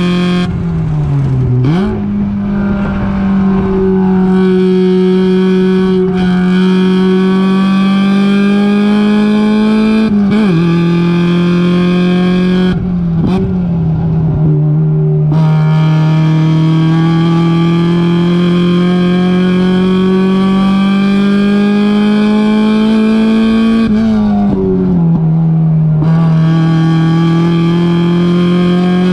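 Engine of a Mazda race car heard from inside the car, running hard with its pitch climbing slowly along the straights. The pitch drops sharply and comes back a few times for the corners: about a second in, around ten seconds, in a longer lift around thirteen seconds, and again near twenty-five seconds.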